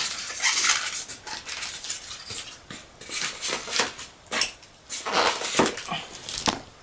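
Handling of a diecast fire truck model: a run of small clicks, taps and rattles of hard plastic and metal parts, mixed with some rustling of packaging.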